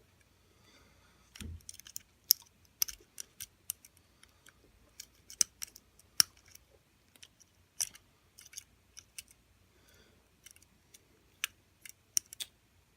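Small, sharp metallic clicks and ticks at irregular intervals as a dimple pick and tension wrench work the pins inside a 70 mm disc padlock, with one soft low bump about one and a half seconds in.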